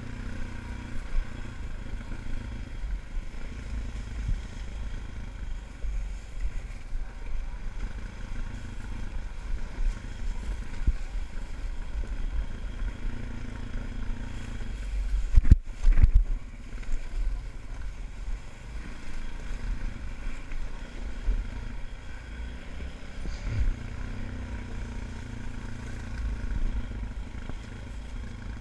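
ATV engine running steadily at low speed. About halfway through, a few sharp knocks are the loudest sound.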